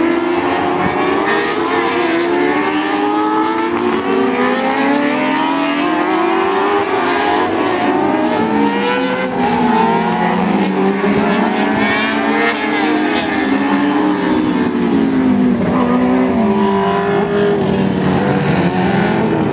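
Several TQ midget race cars lapping together, their engines overlapping and repeatedly rising and falling in pitch as they accelerate down the straights and lift for the turns.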